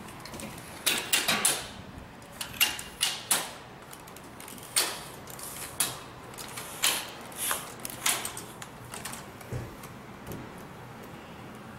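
Aluminium telescopic ladder being pulled out section by section, each section sliding up and latching with a sharp metallic clack; a dozen or so irregularly spaced clacks, the loudest in a quick cluster about a second in.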